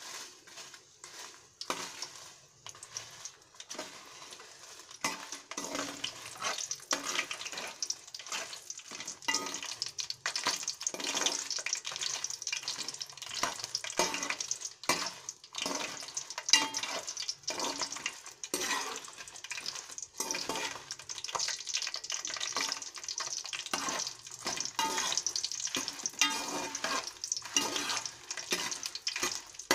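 Dried red chillies frying in hot oil in a metal pan, sizzling steadily, with frequent scrapes and clicks of a metal slotted spoon stirring them against the pan. The sizzling grows louder after the first few seconds.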